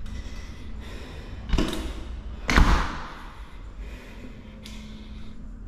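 A heavy door bangs twice about a second apart. The second bang is the louder, a slam that rings briefly, and a short hiss follows near the end.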